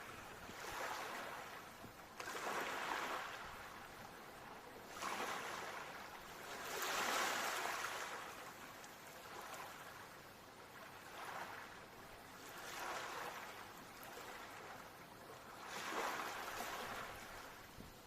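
Ocean waves washing in, swelling and fading every two to three seconds, the biggest about seven seconds in.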